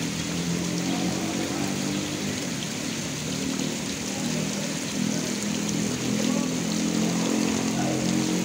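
Steady rain falling on a wide paved square, an even hiss throughout, with a low shifting hum underneath.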